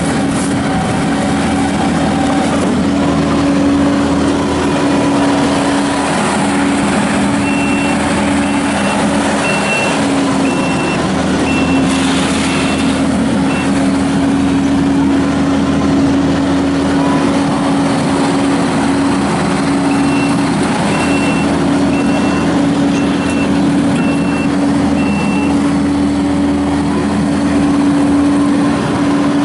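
Kubota SVL75-2 tracked skid steer's diesel engine running steadily, with its reverse alarm beeping in two runs of several seconds each as the machine backs up.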